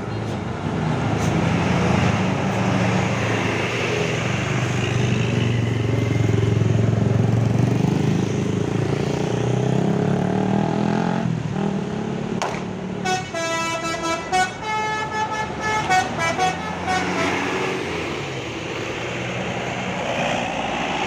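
A tour bus passing with its engine running loud. About thirteen seconds in, a telolet horn plays a quick melody of stepping notes for several seconds.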